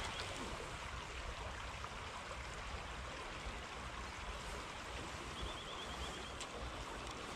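Steady rushing of a shallow stream flowing over gravel, with a low rumble underneath. A short run of faint rapid ticks comes about five and a half seconds in.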